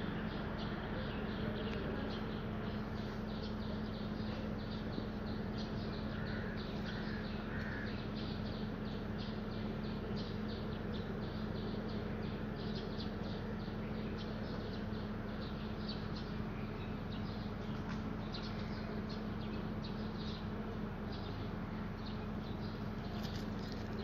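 Animal calls: many short, high-pitched chirps repeating irregularly over a steady low hum.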